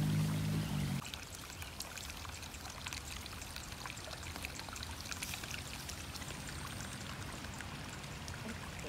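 Steady rush and trickle of flowing water, with small scattered splashy ticks. Background music stops about a second in.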